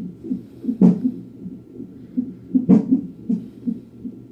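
Fetal heartbeat through a fetal heart monitor's Doppler speaker: a quick, even pulse of about two and a half beats a second. Two louder thumps come about two seconds apart, from the baby's hiccups.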